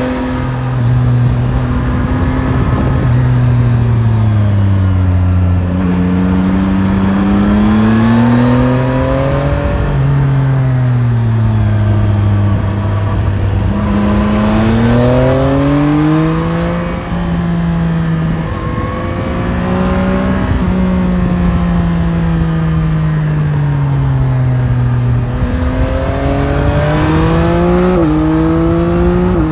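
Yamaha Tracer 9 GT's 890 cc CP3 inline three-cylinder engine running under a rider, its pitch rising on the throttle and falling off again several times. Near the end it climbs and drops back in quick steps as it is shifted up through the gears.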